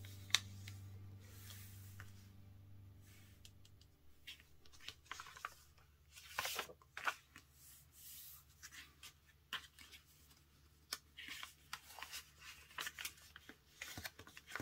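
A sheet of paper being handled, folded and smoothed flat by hand on a table: short, scattered rustles, crinkles and scrapes.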